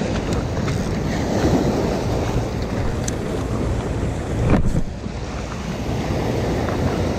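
Sea waves breaking and washing over a rocky shore, with wind buffeting the microphone. A brief louder whoosh comes about four and a half seconds in.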